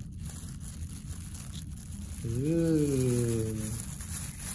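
A man's drawn-out "ooh", lasting about a second and a half, its pitch rising then slowly falling, over a steady low hum.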